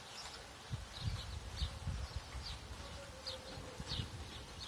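Small birds giving short high chirps at uneven intervals, over a low, uneven rumble of wind on the microphone.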